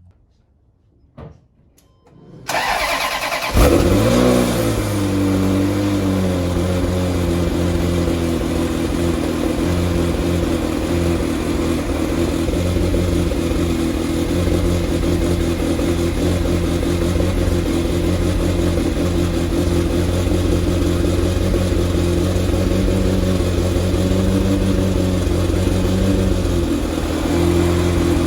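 Ferrari 348's V8 cranked by the starter, catching with a brief rev, then idling steadily. The idle note changes slightly near the end.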